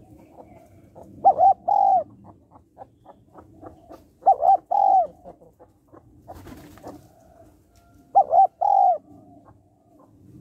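Spotted dove cooing: three phrases a few seconds apart, each two short notes followed by a longer, slightly falling note.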